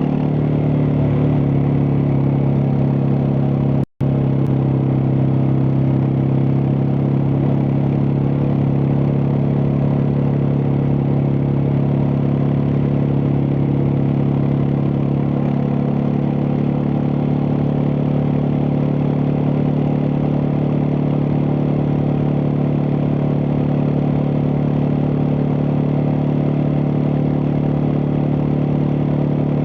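Suzuki DR650's single-cylinder four-stroke engine running at a steady pitch under way, with a constant rush of wind and road noise. The sound cuts out completely for an instant about four seconds in.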